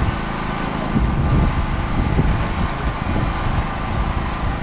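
Fishing boat's engine running steadily at idle.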